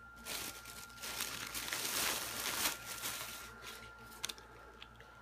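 Plastic packaging crinkling and rustling as it is handled, loudest for a couple of seconds in the middle, with a few faint clicks near the end.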